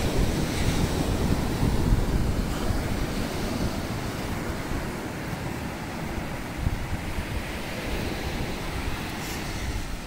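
Wind buffeting the microphone over the steady wash of sea surf, strongest in the first few seconds and then easing a little.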